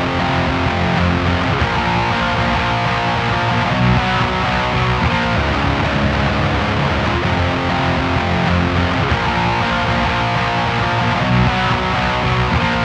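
Electric guitar played through a Diezel VH4 tube amplifier with a ribbed-plate Telefunken 12AX7 preamp tube and Valve Art EL34B power tubes, sounding sustained chords.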